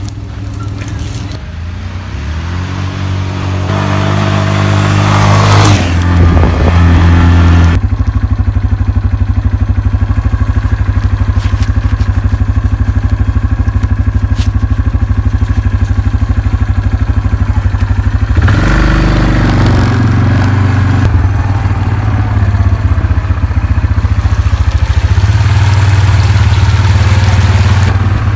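Small trail motorbike engine revving up in steps as it pulls away, then running steadily under way along a gravel trail, with a change in revs about two-thirds of the way through.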